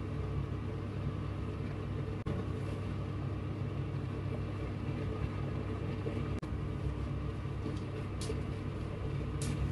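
A steady low mechanical hum, briefly dropping out about two seconds in and again about six seconds in, with two short hisses near the end.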